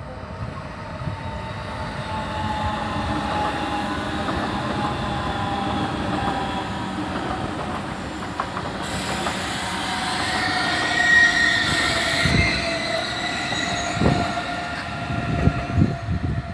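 ICE high-speed train moving through the station, its electric drive whining in several tones that slowly fall in pitch over a rolling rumble. A higher whine joins about two-thirds of the way through, and sharp knocks of wheels over rail joints come near the end.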